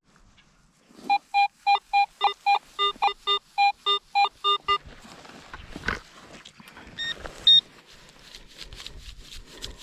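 Metal detector giving a quick run of about fifteen short beeps, about four a second, mostly at one pitch with a few higher, as the coil passes over a buried target. A few higher-pitched tones follow about seven seconds in.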